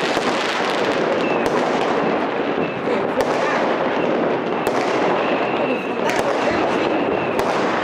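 Fireworks going off: a loud, continuous crackle of many bangs and pops, with sharper single bangs standing out every so often.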